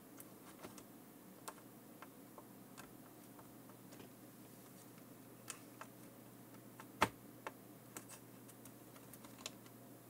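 Light, irregular clicks and taps of small hand tools during fine soldering work on a circuit board, with one sharper knock about seven seconds in, over a faint steady low hum.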